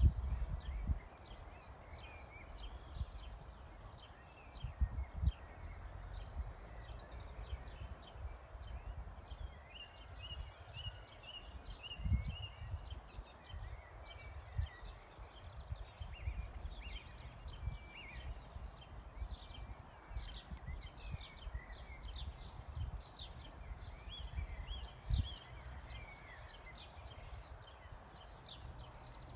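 Small birds chirping and singing in the background, over a low rumble with occasional dull bumps, the loudest near the start and about twelve seconds in.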